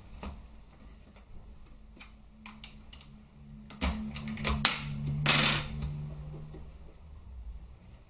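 Parts of an airsoft G36 rifle clicking and knocking as they are handled and fitted together during reassembly. The knocks are louder and closer together about four to five and a half seconds in, ending with a brief scrape.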